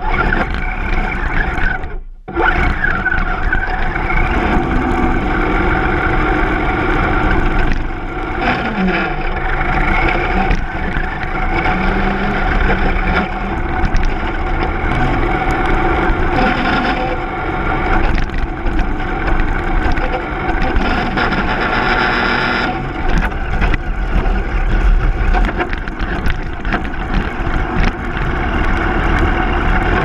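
Axial SCX10 Deadbolt RC crawler driving, its electric motor and drivetrain gears whining steadily over tyre and chassis noise, recorded on board. The sound drops out briefly about two seconds in.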